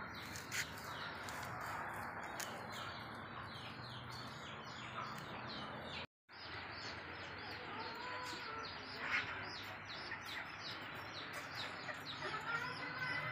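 Small birds chirping in a fast run of short, falling chirps, several a second, over a low steady background hum; the sound drops out completely for a moment about six seconds in.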